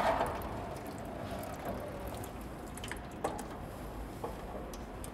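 Engine coolant trickling and dripping from the engine into a stainless steel drain pan, with a few short sharp clicks and taps scattered through it.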